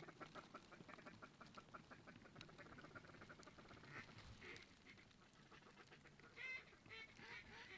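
Faint duck calls: a rapid chattering run, then a few louder honk-like calls near the end.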